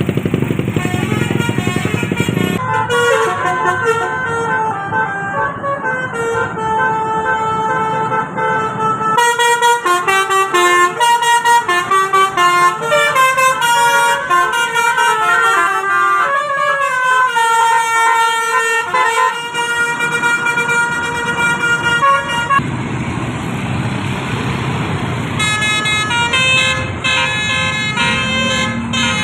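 Bus 'telolet' musical horn playing quick tunes of several tones at once that jump from note to note, in two long runs, with vehicle rumble before each run.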